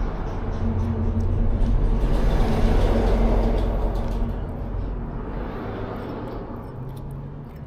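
A motor vehicle passing: its engine and road noise swell to a peak about three seconds in, then fade away. As it fades, a cat can be heard crunching dried sardines.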